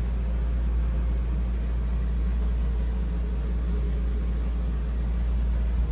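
Camper's air conditioner running, a steady low hum with an even rush of air above it.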